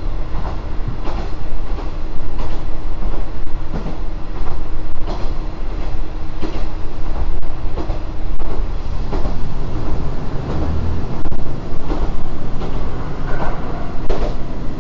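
Kanto Railway KiHa 5000 single diesel railcar running at about 65 km/h, with a steady low rumble and its wheels clicking over rail joints at roughly one-second intervals.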